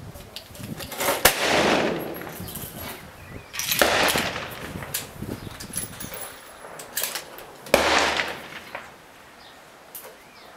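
Three rifle shots a few seconds apart, each followed by a long rolling echo, with fainter cracks in between.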